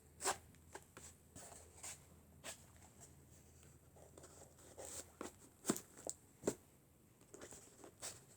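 Homemade cardboard toy shotgun being worked through its reload: a scattered series of light clicks and taps of cardboard parts, with the loudest pair about two-thirds of the way in.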